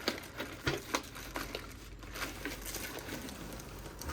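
Hands handling a torn keycap-set box and its packaging: crinkling and rustling with several light clicks and taps.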